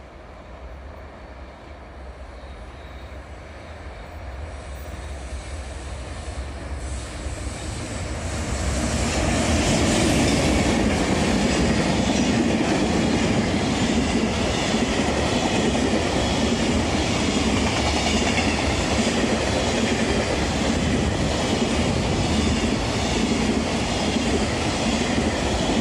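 Container freight train hauled by an EH500 electric locomotive, growing louder as it approaches over the first eight or nine seconds. Its loaded container wagons then run straight through at speed, a steady loud rumble with rhythmic clicking of wheels over rail joints.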